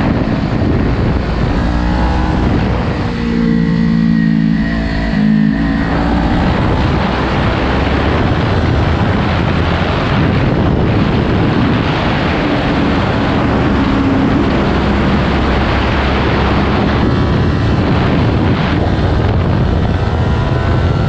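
2018 Kawasaki Ninja 400 parallel-twin with a slip-on exhaust, at speed on track: the engine note rises and falls for the first six seconds or so, then is mostly buried under a steady rush of wind noise on the camera microphone, with the engine briefly coming through again midway.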